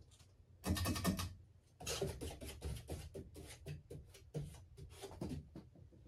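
A hand brushing against and catching the turning palm-leaf-shaped blades of a ceiling fan to bring them to a stop: irregular scratchy rubbing with light knocks, starting under a second in and dying away near the end.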